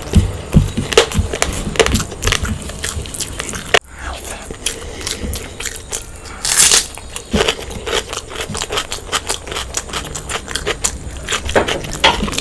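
A person eating close to the microphone: chewing and crunching food, with many irregular sharp crackles and smacks. There is a brief cut in the sound about four seconds in.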